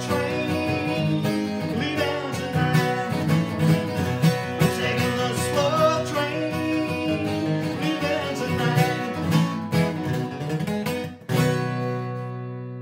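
Steel-string acoustic guitar strummed and flatpicked in a bluegrass style while a man sings a long, drawn-out closing line. About eleven seconds in, a final chord is struck and left to ring, slowly fading.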